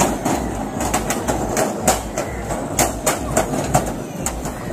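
Large walk-in metal wheel turning on its rollers as a person walks inside it. A steady rumble with sharp clanks about twice a second.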